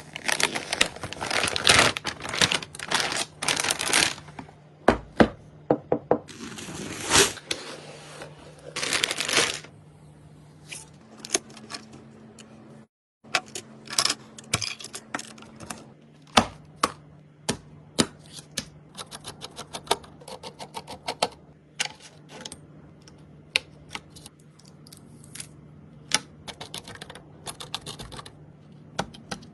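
Rapid clicks, taps and snaps of computer parts being handled and fitted together, with bursts of rustling in the first few seconds and again near the middle, over a faint low steady hum.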